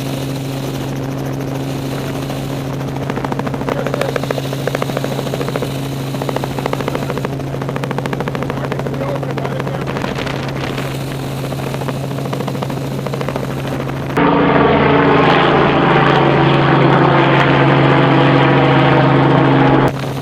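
Helicopter running, with a steady low hum and fast rotor chop. About fourteen seconds in it turns suddenly louder and brighter, then drops back just before the end.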